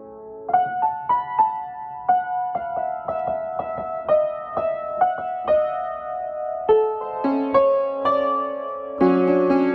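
A piano or electric keyboard playing a slow melody: single notes struck about two to three times a second over lower held notes, with a fuller chord about nine seconds in.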